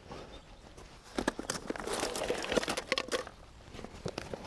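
Crinkly rustling from rummaging through a fishing tackle bag, with a quick run of clicks and knocks from about one to three seconds in.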